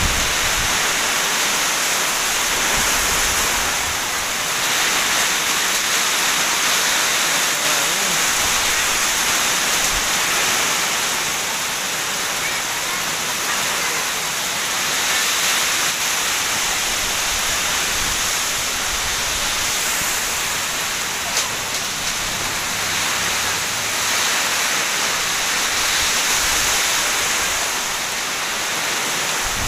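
Heavy tropical downpour driven by strong wind: a dense, steady rush of rain that swells and eases every few seconds as the gusts come and go.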